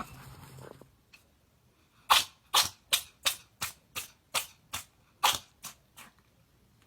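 An animal sneezing in a rapid fit: about eleven short, sharp sneezes, roughly three a second, starting about two seconds in, the first the loudest and the later ones weaker.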